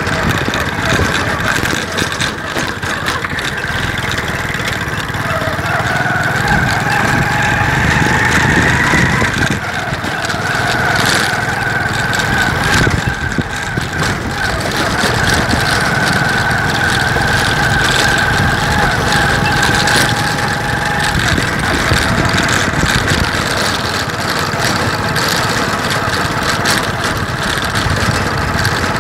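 An engine running steadily, with a whine that climbs in pitch for a few seconds, drops back, and then holds level.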